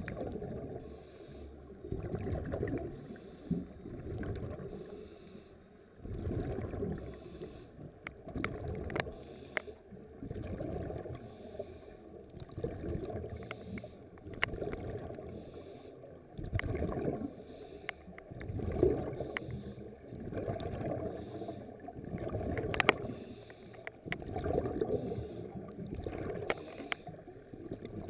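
Scuba regulator breathing underwater, muffled through the GoPro Hero3's sealed waterproof housing: rushes of exhaled bubbles swelling and fading about every two seconds with the breathing, with a few sharp clicks between.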